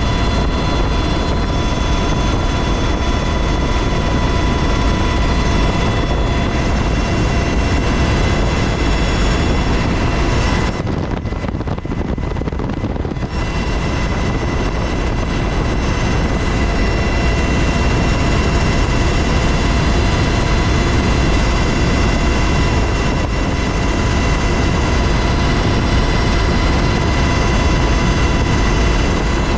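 Loud, steady cabin noise of a UH-60 Black Hawk helicopter in flight: the rotor and twin turboshaft engines drone, with several steady high whining tones over it. The top end goes muffled for a couple of seconds about eleven seconds in.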